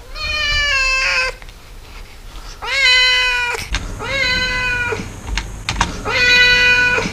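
Domestic cat meowing four times, each call about a second long and held at a fairly steady pitch, picked up close on a dynamic microphone. A few short clicks come between the later calls.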